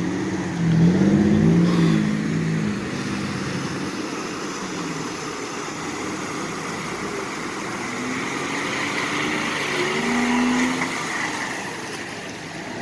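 A vehicle's engine revving hard as it pulls through an off-road river crossing, loudest about a second in, easing back, then revving up again near the end.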